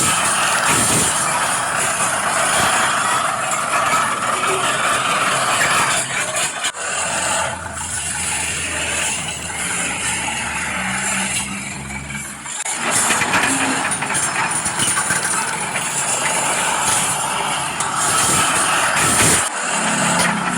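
Engine and machinery noise of construction machines at work, steady and loud, with abrupt changes about 7, 13 and 20 seconds in.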